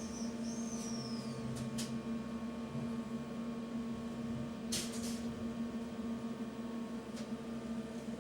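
Railway ambience: a steady low mechanical hum with a rumble beneath it. A short high squeal falls in pitch near the start, and a few sharp clicks come through, the loudest about five seconds in.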